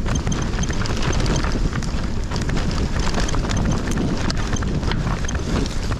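Hardtail mountain bike riding a dirt trail at speed: steady tyre and wind noise with the bike rattling and knocking over bumps throughout.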